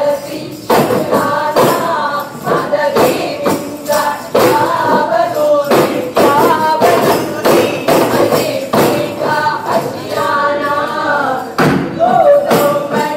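Arabana muttu: a group of voices singing in chorus over sharp, rhythmic strokes on arabana, large hand-held frame drums.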